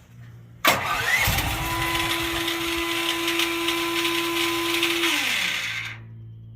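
Duromax XP12000HX generator's engine starting on restart with its new NGK BPR6ES spark plug: a sudden loud start under a second in, about five seconds of loud running with a steady whine that falls away, then a drop to a lower steady hum. It starts without the earlier backfiring and no-start trouble, a sign the plug change has cured it.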